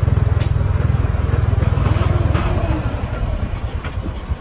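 Single-cylinder diesel engine of a công nông farm truck chugging steadily while driving, a rapid low thudding that eases slightly in the second half. A sharp click about half a second in.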